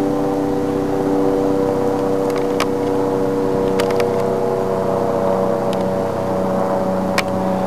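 Deep, steady engine drone from an unidentified lit aircraft flying overhead, a hum of several held tones that sounds like a tugboat and sinks slightly in pitch. A few faint clicks occur over it.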